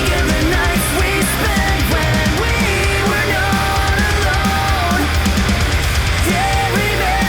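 Rock music with a driving drum kit and electric guitar, a steady beat under a moving melodic line.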